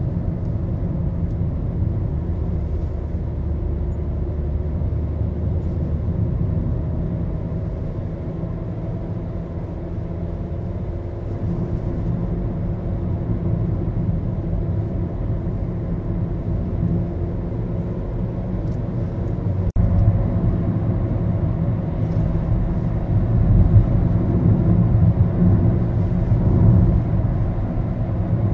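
Maruti Suzuki Baleno driving, heard from inside the cabin: a steady engine hum and road rumble, the engine note drifting slowly up and down in pitch. The rumble grows louder about two-thirds of the way through, just after a brief click.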